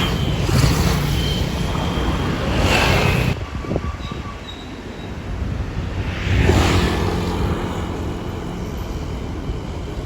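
Road traffic: engines of passing vehicles rumbling, with tyre and wind noise swelling as vehicles go by, three times in all, and a quieter lull in the middle.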